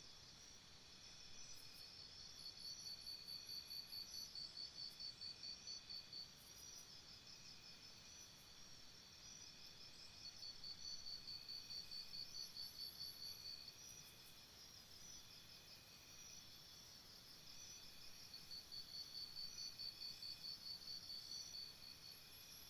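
Crickets chirping faintly in a steady high trill. Three times, a louder run of high, evenly pulsed chirps at about four a second rises over it, each run lasting a few seconds.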